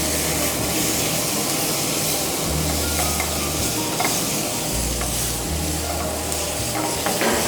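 Prawns and mixed vegetables sizzling in a hot pan while being stirred, with a few light taps of the utensil against the pan.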